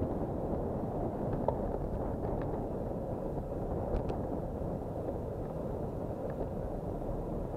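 Wind buffeting a bicycle-mounted camera's microphone while riding, a steady low rumble, with a couple of faint ticks.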